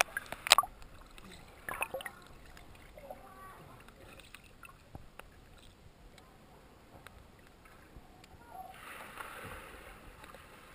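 Muffled water sound from a camera dipped into a river pool. Sharp splashes and knocks come as it breaks the surface at the start and again about two seconds in. Then a low underwater hiss follows, with a swell of rushing water near the end.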